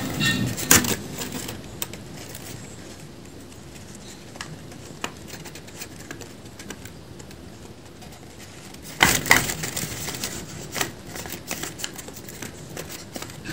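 Folded paper dragon puppet's jaws being snapped open and shut, making crisp paper clicks and rustles. There are quick clusters of snaps right at the start and again around nine seconds in, with scattered single clicks between.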